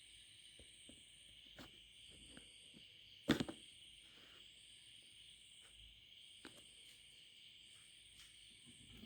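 Light clicks and taps of tools and parts being handled on a workbench during soldering, with one louder knock about three seconds in, over a faint steady hiss.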